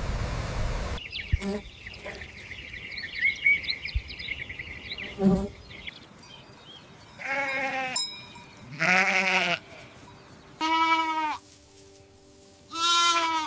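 A steady rushing noise for the first second gives way to high chirping and a couple of sharp knocks. From about halfway through, farm animals bleat four times, each bleat under a second long.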